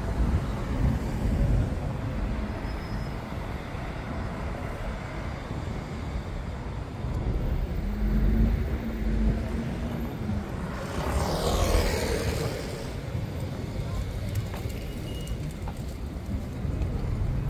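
City road traffic: a steady low rumble of passing cars and buses. A louder rush of a vehicle passing close comes about eleven seconds in.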